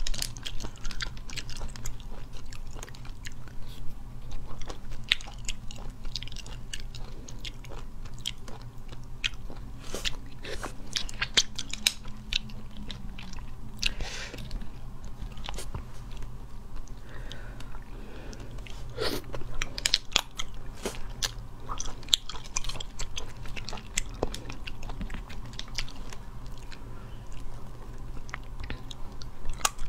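Close-up eating of small spiced sea snails: chewing, with many short clicks as the shells are handled and the meat is picked out with a toothpick.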